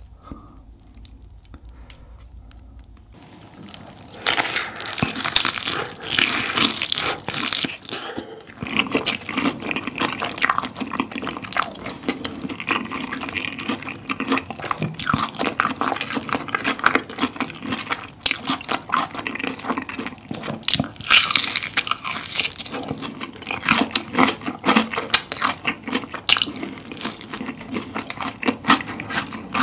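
Close-miked wet chewing, slurping and lip-smacking of glass noodles in thick spicy tteokbokki sauce wrapped around fried chicken. It starts about three to four seconds in, after a near-quiet start, and then goes on as a dense run of sticky smacks and clicks.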